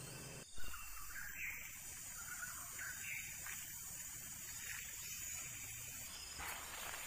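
Outdoor ambience with a steady hiss and short, faint chirping calls, repeated roughly every second. About half a second in, the sound begins with a brief bump.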